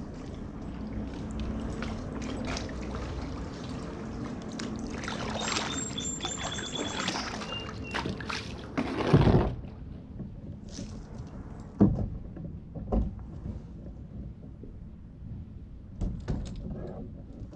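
Kayak paddle dipping and splashing in shallow creek water with dripping from the blade, then several sharp separate knocks as the kayak or paddle meets the rocks at the bank.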